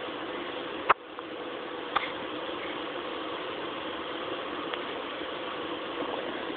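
Two short, sharp hiccups about a second apart, the first the louder, over a steady background hum.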